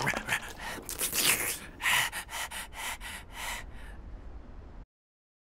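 Cartoon sphinx creature's rapid, breathy snuffling and sniffing, which slows to about three sharp sniffs a second and fades out about four seconds in, followed by a brief dead silence.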